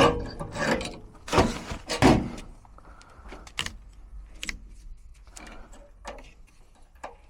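Hands-on work inside a furnace with the power off: several loud metallic clattering knocks in the first two seconds, then scattered lighter clicks and taps.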